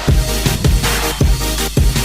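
Background electronic music with a heavy bass and a fast, steady drum beat.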